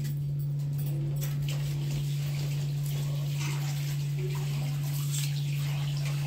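A steady low hum, the loudest sound, with light scattered clicks and rustles of dry onion skins being peeled off with small knives.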